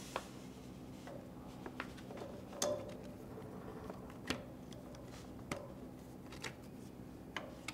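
Faint metallic clicks as a T-handle hex key turns a screw in a metal mounting arm for a DRO display, about one every second, over a low steady hum.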